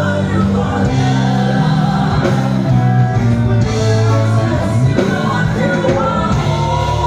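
A church choir singing with a live band, bass notes held under the voices, in a large room.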